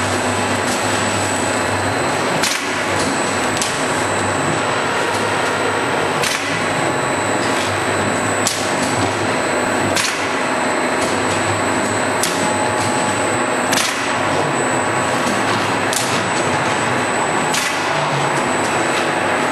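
Industrial film laminating machine running: a steady mechanical whir with sharp clacks every second or two.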